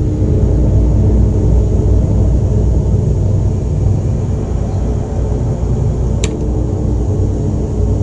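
Deep, steady low rumble of a cave ambience, with the ringing tones of a struck bell dying away in its first second or so. A single sharp click about six seconds in.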